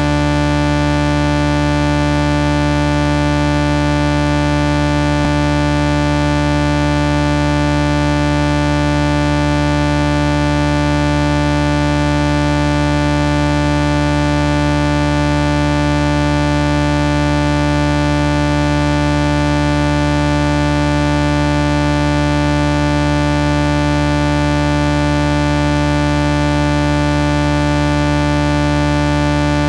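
A loud, steady synthesized drone of many layered tones, buzzing and unchanging in pitch and level.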